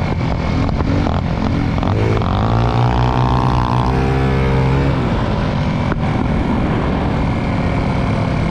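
Moped engine rising in pitch as it accelerates about two seconds in, holding for a couple of seconds, then dropping off about five seconds in. Steady wind rush on the microphone from riding at speed.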